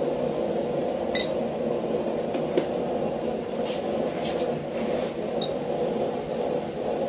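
Steel box wrench clinking on a steel tool block as it is set down and handled: one ringing clink about a second in, then several lighter ticks. A steady rumble of road traffic runs underneath.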